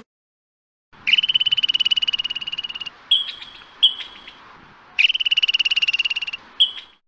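A frog calling. There are two long, fast-pulsed trills, the first about two seconds long and the second about a second and a half, and each is followed by one or two short chirps.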